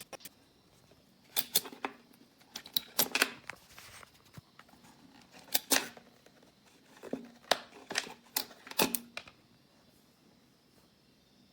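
A dozen or so short, sharp clicks and light knocks, coming in loose clusters of two or three and stopping about three-quarters of the way through.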